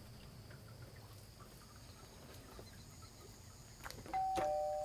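Faint open-air quiet with a steady high insect-like trill. Near the end, a two-note chime rings out, a higher note followed by a lower one like a doorbell's ding-dong, and slowly fades.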